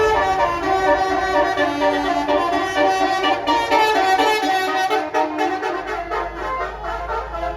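A bus's Basuri telolet musical horn playing a quick tune of changing notes. A low engine rumble comes in near the end.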